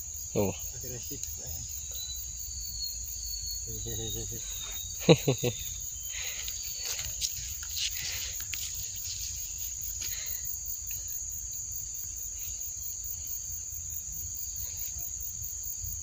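Steady high-pitched buzzing of insects, with a few short bursts of voice about four and five seconds in.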